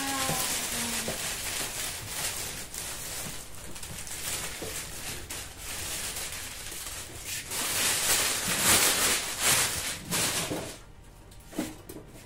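Cardboard appliance box and its packaging rustling and scraping as it is handled and carried: an irregular crinkling hiss, louder from about eight to ten seconds in.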